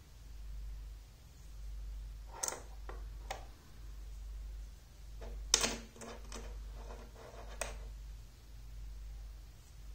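Small magnetic rods snapping onto steel balls: a few sharp clicks about two and a half seconds in, then a quick cluster of clicks in the middle, the loudest of them, and one more click a couple of seconds later, over a low steady hum.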